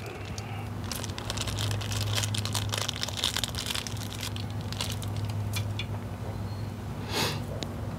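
Crinkling and rustling of hands handling small parts while reaching for a wire nut, with a brighter rustle about seven seconds in, over a steady low hum.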